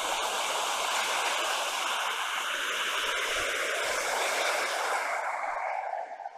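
Mountain river rushing over rocks in white-water rapids: a steady, even rush of water that falls noticeably quieter near the end.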